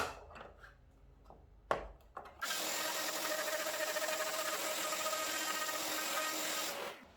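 A click and a knock, then a plunge router with a long-reach cutter runs steadily for about four and a half seconds, starting suddenly about two and a half seconds in and stopping shortly before the end.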